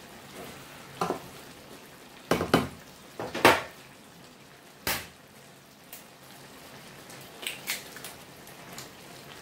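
Wooden spatula knocking and scraping against a frying pan of simmering vegetables, with several sharp knocks in the first five seconds, then a few lighter clicks near the end as an egg is cracked into the pan. A faint steady simmer sits underneath.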